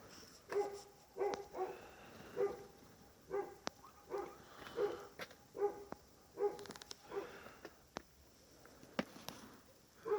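A dog barking repeatedly, about a dozen short barks, with a few sharp clicks in between.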